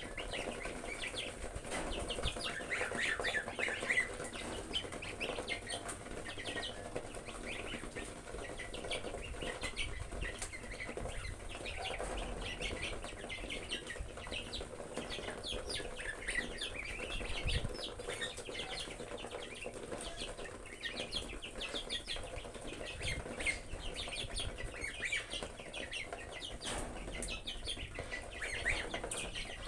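A brood of goslings peeping steadily, many short high calls overlapping, with scattered sharp clicks as they peck at the feed.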